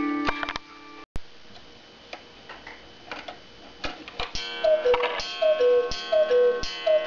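Black Forest cuckoo clock: the Swiss music box's tune dies away, the pendulum ticks, and about four seconds in the clock starts striking the hour, each strike a gong stroke with a falling two-note cuckoo call from its bellows-driven wooden whistles, repeated about every 0.6 s.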